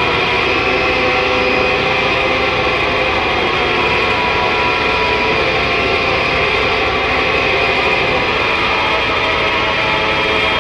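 Noise-music drone: a dense, steady wall of noise with several held tones layered in it, no beat or pauses.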